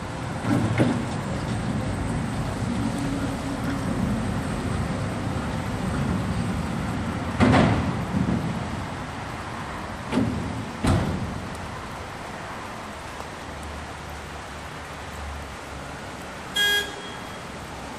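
Forklift truck running with a steady low hum while loading. Several sharp knocks and clanks come through it, the loudest about seven and a half seconds in and two more a little after ten seconds. One short beep sounds near the end.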